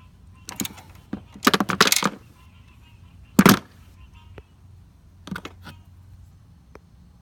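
Hand tools clinking and clattering: a rapid run of metallic clicks, one loud clank about halfway through, then a few lighter clicks, as a ratchet and sockets tighten the bolts of a strut tower bar.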